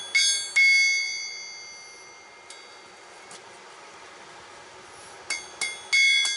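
Three hammer blows on steel at the anvil, each ringing like a bell, with the last ring fading slowly over about two seconds. Near the end, four or five more quick metallic strikes with the same ring.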